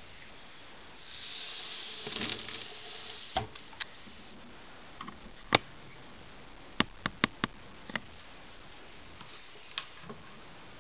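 Electric Turkish coffee pot heating its coffee close to the boil: a soft hiss swells for about two seconds, then a scattered run of sharp clicks and taps.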